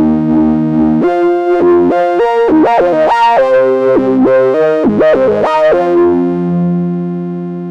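Moog Subsequent 25 analogue synthesizer playing its 'Opus III Moog' patch from a sequencer: a held chord, then a quick run of notes from about a second in, ending on a sustained chord that slowly fades.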